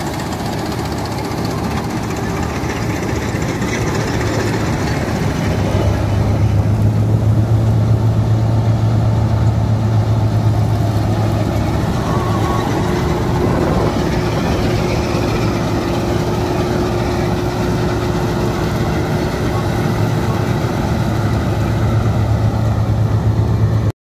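Hind 999 combine harvester running while it harvests wheat, heard close by: a loud, steady engine and machinery drone. A deep hum grows stronger about six seconds in and again near the end, and a steady higher whine runs through the middle.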